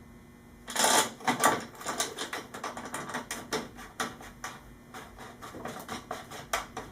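Metal clicking and clattering as a motorcycle rear axle is wiggled and pushed through the swingarm and chain adjusters while being lined up. A loud clatter comes just under a second in, followed by many quick, irregular clicks and knocks.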